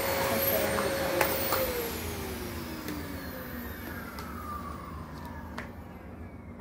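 Canister vacuum cleaner's motor whining steadily, then a click about a second in and the motor winding down after being switched off, its whine falling steadily in pitch and fading.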